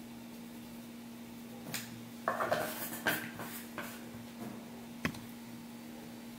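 Small hard clicks and clatters of makeup compacts and a brush being handled, a cluster of them about two to four seconds in and one more click about five seconds in, over a steady low hum.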